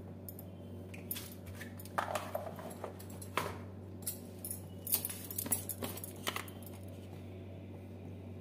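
Scattered clicks and knocks of spice containers and a spoon being handled and set down on a kitchen counter, over a steady low hum.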